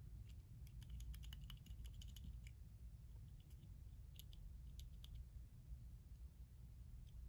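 Faint small metallic clicks and ticks of a petrol lighter's tiny mechanism parts being handled and fitted with fingers and a small screwdriver. There is a quick flurry of clicks in the first couple of seconds, then a few scattered ones, over a low steady hum.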